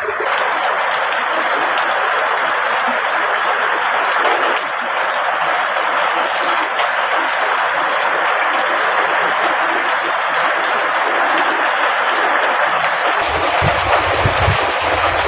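Heavy rain pouring down in a steady, loud hiss. Near the end, strong wind starts buffeting the microphone in low rumbles.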